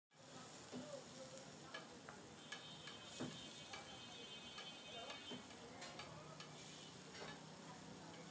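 Minced meat sizzling on a large flat griddle, with a metal spatula scraping and clicking against the griddle at irregular intervals about a second apart.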